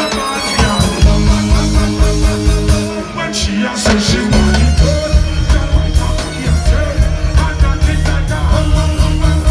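Live reggae band music with a heavy, stepping bass line and a steady beat, played loud through a festival sound system.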